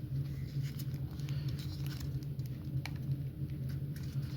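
Scattered light clicks and taps from handling a Milwaukee M12 compact impact driver, over a steady low hum.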